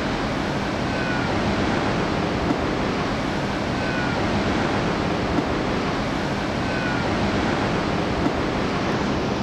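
Steady rushing sea ambience of wind and water, with three faint short falling whistles spaced about three seconds apart.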